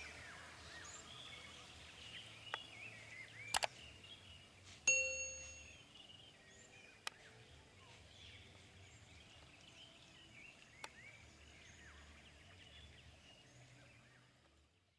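Wild birds chirping and singing, with a few sharp clicks and, about five seconds in, a single ding that rings on for about a second.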